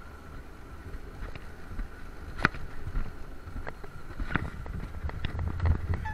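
Alpine coaster sled running fast down its steel rails: a low rumble with wind rush on the microphone, a faint steady high whine, and scattered sharp clacks and rattles, the loudest about two and a half seconds in, getting a little louder toward the end.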